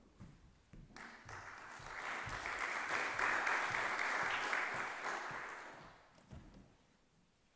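Audience applauding a performer who walks on stage, starting about a second in, swelling, then dying away near the end.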